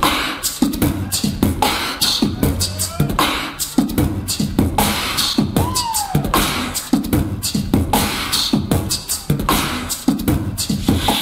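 A beatboxer beatboxing live into a microphone: a fast, dense run of percussive mouth sounds, with a short vocal swoop that rises and falls about six seconds in. The beat cuts off suddenly at the very end.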